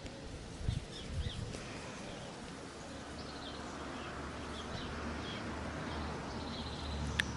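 Small garden birds chirping in short scattered calls, over a steady low background hum. A couple of soft low thumps come about a second in, and a sharp click near the end.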